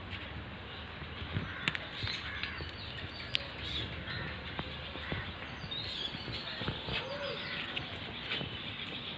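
Birds chirping in short calls, with scattered small clicks and knocks.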